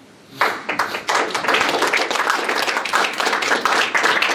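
Audience applauding, many hands clapping together, starting about half a second in.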